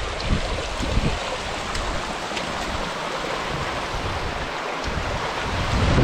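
Wind buffeting the microphone: a steady rushing hiss with gusty low rumbling that comes and goes.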